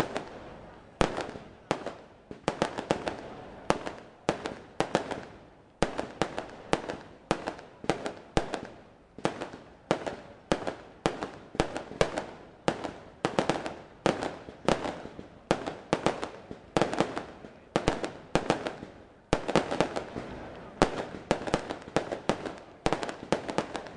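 Aerial fireworks display: a continuous run of sharp bangs from shells bursting overhead, coming in quick clusters of two to four, each bang followed by a short fading tail.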